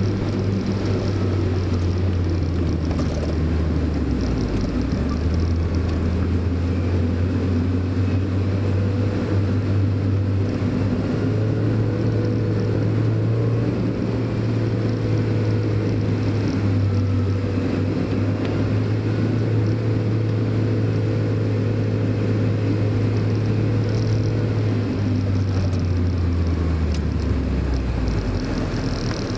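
Mazda Roadster's four-cylinder engine running under way, heard from inside the car over steady road noise. The engine note drops about four seconds in, climbs back and holds, then falls away near the end.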